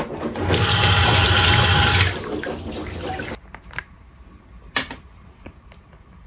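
Water running from a tap into a sink for about three seconds, loudest in the first two, then cutting off suddenly; a few light knocks follow.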